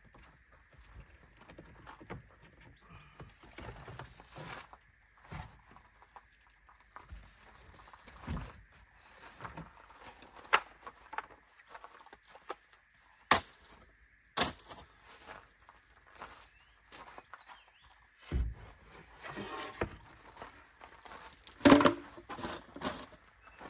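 A steady high-pitched drone of insects, with scattered short knocks and clicks over it. The loudest knocks come near the end.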